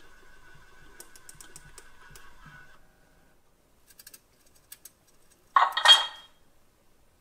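Gauge 1 model Köf II shunting locomotive's drive running faintly and steadily, with light ticks, stopping about three seconds in. A few small clicks follow, then near the end a short loud sound effect from the loco's ESU LokSound decoder as the servo-driven BSI coupling hook drops back down.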